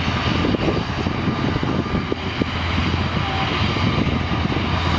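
Airbus A321-211's CFM56 turbofan engines running as the airliner rolls along the runway: steady jet noise with a strong low hum.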